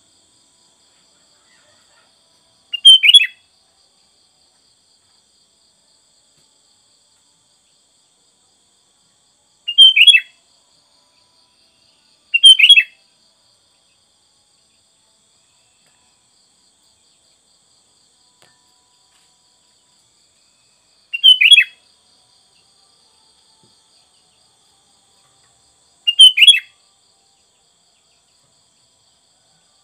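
Sooty-headed bulbul (kutilang) giving five short, loud chirping calls spaced several seconds apart. Each call is a quick phrase of about half a second that falls in pitch.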